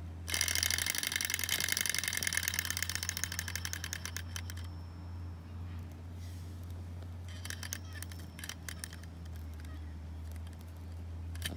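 Model hot air (Stirling) engine's flywheel and linkage clattering in a fast, even run of clicks as it spins, dying away after about four seconds. It clicks again in short spurts later on, over a steady low hum.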